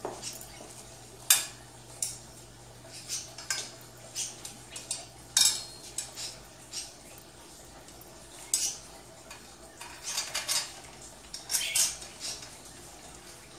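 Metal frame of a Roma folding rollaway bed clinking and clanking as it is handled: irregular sharp metallic knocks and rattles, bunched more closely near the end.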